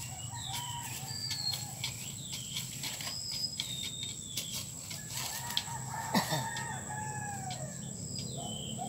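A rooster crows once, a long call starting about five seconds in and falling away at the end, over repeated short chirps of small birds. Leaves rustle and crackle as hands work through sweet potato vines.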